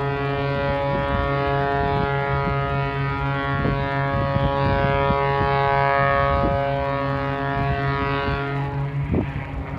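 Single-engine aerobatic propeller plane at full power, its engine and propeller giving a steady drone with a clear pitch. Near the end the drone fades and changes pitch as the plane pulls into a smoke-trailing vertical manoeuvre.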